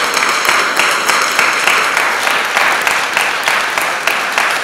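Audience applauding: many hands clapping together in a steady, continuous run.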